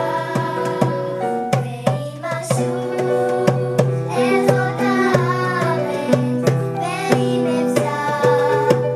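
Children's choir singing a song together, accompanied by a hand drum beaten in a steady beat.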